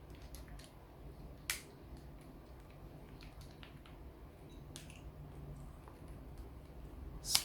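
Light clicks and taps of small reel parts being handled and fitted onto a spinning reel's handle, with one sharper click about a second and a half in and another near the end.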